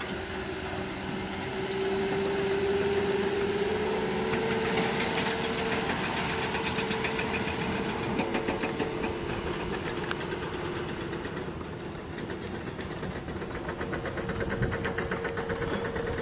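Dump truck's diesel engine running with a knocking clatter, its pitch rising slightly about four seconds in.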